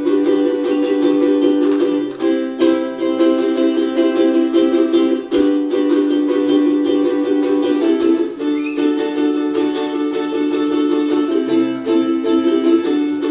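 Solo ukulele strumming chords, the chord changing about two seconds in, again around eight seconds and near eleven and a half.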